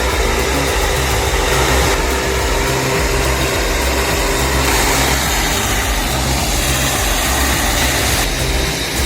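An engine running steadily with a loud, continuous mechanical din. Its character shifts a few times.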